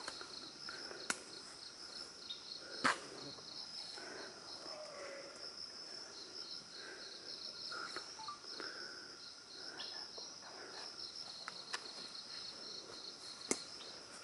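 Forest insects chirping in a steady, rapid pulsing trill, faint, with a few sharp clicks scattered through.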